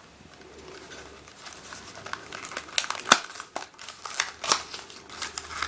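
Plastic packaging crinkling and crackling in irregular bursts as it is handled and opened, faint at first and louder from about two seconds in.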